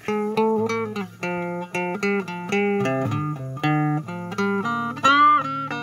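A tiny electric guitar played through a homemade TDA2030 chip amplifier kit and speaker: single picked notes and small chords, each ringing on, a few a second, with one note bent upward about five seconds in.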